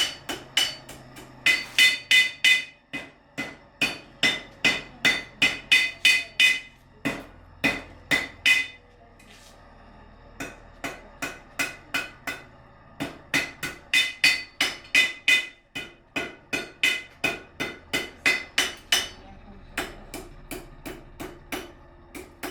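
Blacksmith's hammer striking a horseshoe on an anvil, about two to three blows a second with a bright metallic ring on each. The blows come in runs, with short pauses about nine seconds in and again near the middle of the second half.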